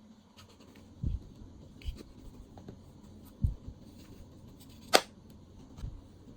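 Glossy slime being squished and pressed by hand: soft, low squelches every second or so, with one sharp click about five seconds in, the loudest sound.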